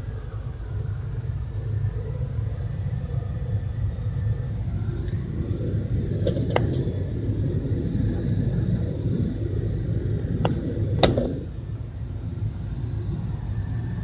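Furnace blower running with a steady low rumble while water trickles through the General power humidifier, its solenoid valve open and feeding water to the drain. A few sharp clicks about six seconds in and again near eleven seconds.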